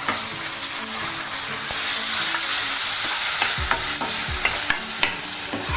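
Ground onion-tomato masala paste sizzling in hot oil and ghee in a metal kadhai while a metal spatula stirs it. The spatula scrapes and clicks against the pan, more often in the second half.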